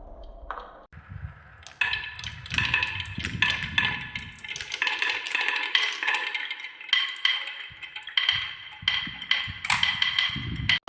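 Balls rolling and clattering down a handmade marble run, starting about a second in: a quick, uneven stream of clicks and knocks, with a ringing tone hanging over the hits.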